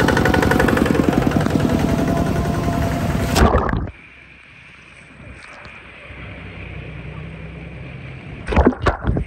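A small engine running loudly close by, with rapid even firing pulses, cutting off abruptly about four seconds in. A much quieter steady rushing noise follows, broken by two brief louder bursts near the end.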